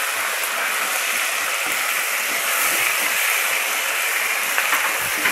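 Ginger-garlic paste frying in hot oil in a kadhai, sizzling steadily while being stirred with a nylon spatula.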